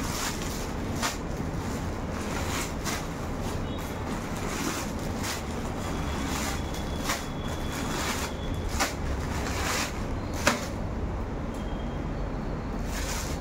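Plastic courier mailer and cellophane saree packets rustling and crinkling in short irregular bursts as they are handled, with one sharp tap or click about ten and a half seconds in, over a steady low background noise.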